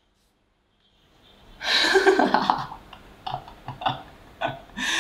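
A young man laughing: silence at first, then a long burst of laughter about a second and a half in, followed by short separate bursts of laughter that build up again near the end.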